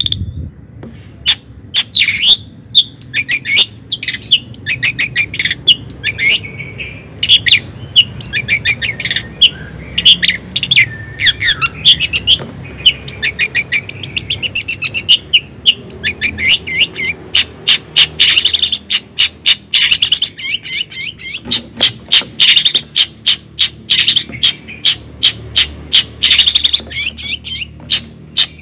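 Bird chirping in rapid runs of short, high notes, each run a second or two long, with brief pauses between them.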